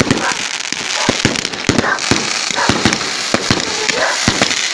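Fireworks going off: a quick, irregular run of sharp bangs, several a second, over a steady crackling hiss.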